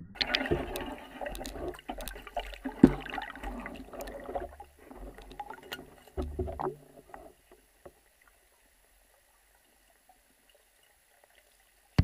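Water noise heard through an underwater camera, with bubbling and many sharp clicks and knocks. At about eight seconds in it falls to near silence.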